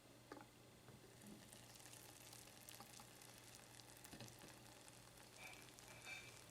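Faint sizzling and crackling of food frying, over a low steady hum.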